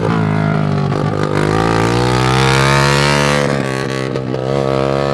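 A vehicle engine revving under load, its pitch climbing for a couple of seconds and then dropping back.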